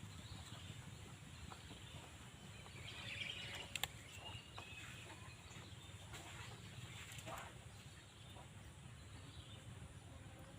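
Faint rustling and scraping of soil being put into plastic cups, over a quiet outdoor background with a brief chirp about three seconds in.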